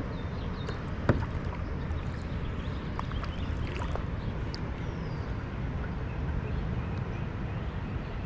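Small sounds of a fishing kayak drifting on calm water: faint water gurgling against the hull over a steady low rumble, with light knocks and ticks of gear against the kayak, the sharpest knock about a second in. A short falling whistle comes near the middle.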